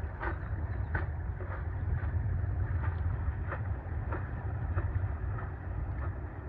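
Wind buffeting the microphone in a steady low rumble, with short water splashes repeating about every two-thirds of a second.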